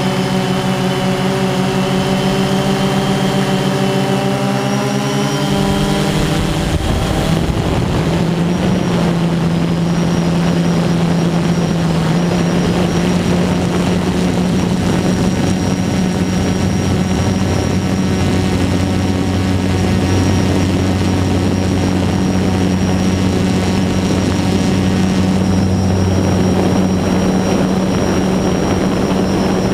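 DJI Phantom 2 quadcopter's four T-Motor MN2214 brushless motors and propellers running in flight, a steady buzzing hum. The pitch shifts about six seconds in, then holds steady.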